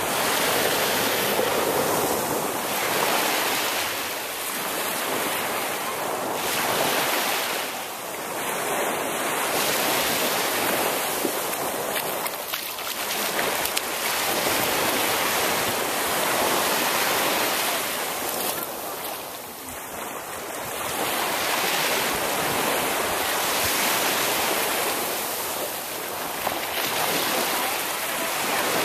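Small waves washing and breaking on a sandy shore, swelling and easing every few seconds, with wind blowing on the microphone.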